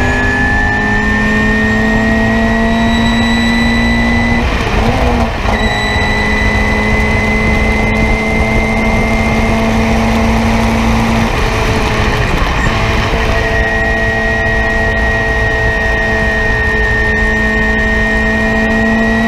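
Race-prepared Nissan Sentra's engine heard from inside the cockpit, running hard at high revs with its pitch slowly climbing, over a steady rush of road and wind noise. It breaks off briefly about five seconds in, and eases again around twelve seconds in as the car slows for a bend.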